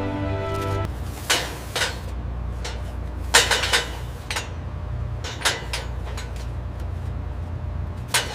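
Steady low machine hum with sharp metallic clanks and clinks at irregular intervals, a quick cluster of them about three and a half seconds in and two more near the end. Background music cuts off about a second in.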